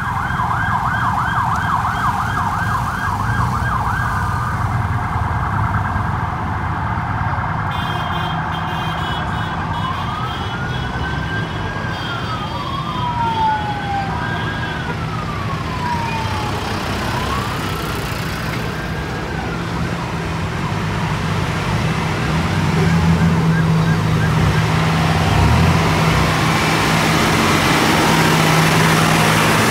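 A siren sounds a fast yelp for the first few seconds, then a few slow rising-and-falling wails, over the steady running of passing motorcycle and tractor engines. Later a John Deere 8245R tractor's diesel engine passes close, its steady drone growing louder.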